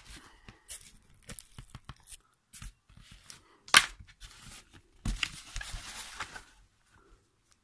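Handling noise from a handheld camera being swung about: irregular rustling and scraping with light knocks, a sharp loud click a little under four seconds in, and a longer stretch of rustling from about five to six and a half seconds.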